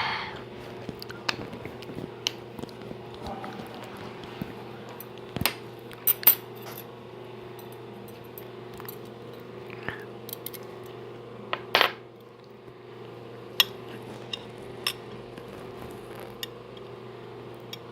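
Cutlery clinking against dishes in scattered, irregular clicks, over a steady low hum.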